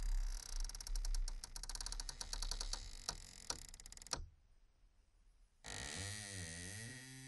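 Sound-design effects: a dense run of crackling clicks over a low rumble cuts off suddenly about four seconds in. After a short pause, a warbling tone begins whose pitch bends up and down.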